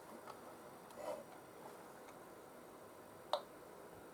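A few faint clicks and taps from an HDMI cable plug being moved about in the PS4's port, with the sharpest click near the end. The port is faulty: the video signal drops whenever the plug leaves a certain position.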